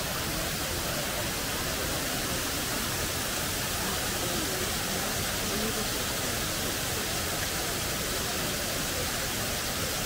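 Shiraito Falls, a wide curtain of many thin streams of water spilling over a rock face, giving a steady, even rush of falling water.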